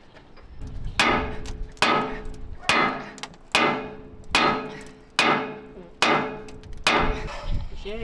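Sledgehammer blows on steel, driving out a seized bulldozer pin: eight heavy strikes a little under a second apart, each ringing out briefly.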